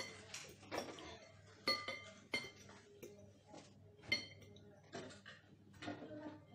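A metal fork clinking and scraping against a ceramic soup bowl as noodles are stirred and twirled. There are about four sharp, ringing clinks, with softer scrapes between them.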